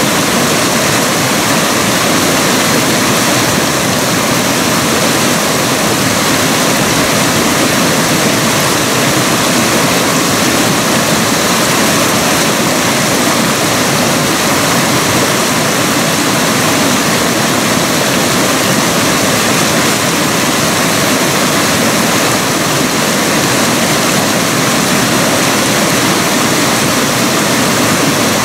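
Mountain creek rushing over rocks through small rapids: a loud, steady rush of water with no breaks.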